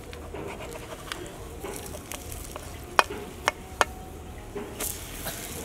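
A pancake sizzling on an iron griddle over a wood fire, with a metal spatula scraping and working it on the pan. Three sharp clicks come about three seconds in, and a brief hiss near the end.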